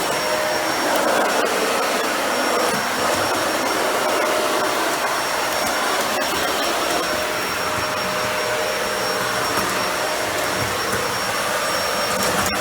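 Dyson Ball Animal 2 upright vacuum's suction motor running steadily as the machine is pushed and steered across a bare floor, with a thin high whine over the rush of air.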